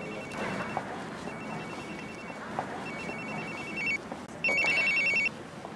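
Mobile phone ringing: a trilling electronic ringtone of two high tones, four rings, each louder than the last.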